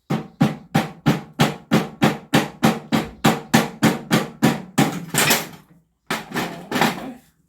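Rapid hammer blows on metal, about three or four a second, each with a short ring, driving out the steering column. The blows break off briefly near the end, then a few more follow.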